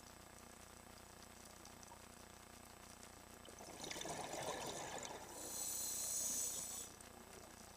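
Scuba regulator breathing heard underwater: a burble of exhaled bubbles about four seconds in, then a high hiss of inhalation through the demand valve lasting nearly two seconds.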